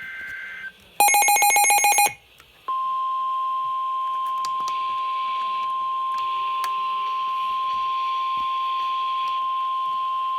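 Emergency Alert System weather-radio alert: the tail of a warbling two-tone digital header burst, a harsh buzzing beep lasting about a second, then, from about three seconds in, the steady single-pitch weather radio warning alarm tone that announces the warning, over faint radio hiss.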